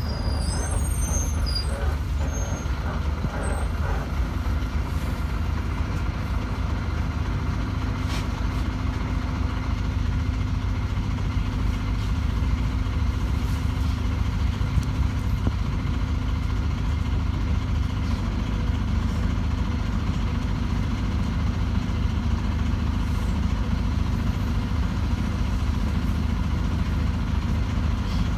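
City bus engine running with a steady low drone, heard from inside the passenger cabin while the bus crawls and then stands in traffic. A few faint high squeaks come in the first couple of seconds.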